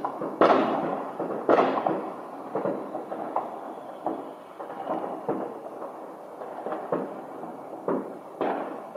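New Year's Eve fireworks going off: a rapid, irregular series of aerial shell bursts and firecracker bangs. The two loudest come about half a second and a second and a half in, with smaller bangs following one after another.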